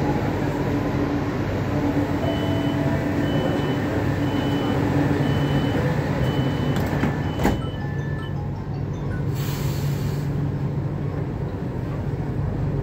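Steady hum and rumble inside a Chennai Metro train car. A run of about seven short, evenly spaced high beeps starts a couple of seconds in. A single sharp knock comes about halfway through, after which the hum is a little quieter.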